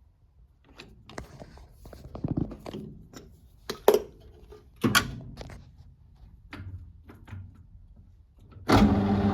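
Metal knocks and clunks of the lathe chuck and bar being handled, two of them sharp and loud midway through. Near the end the Warco GH1330 lathe switches on and its spindle runs with a steady hum.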